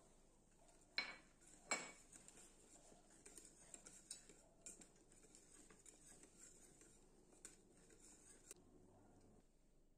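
Metal whisk stirring a chocolate and milk mixture in an enamel saucepan: two sharp clinks about a second in, then faint, continuous scraping with small ticks of the wires against the pan.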